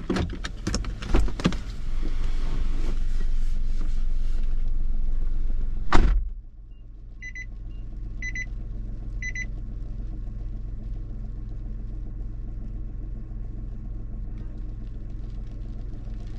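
Knocks and clicks, then a steady rushing noise, ended by a car door slamming shut about six seconds in. Inside the cabin a warning chime then beeps three times, about once a second, over the steady low hum of the idling engine.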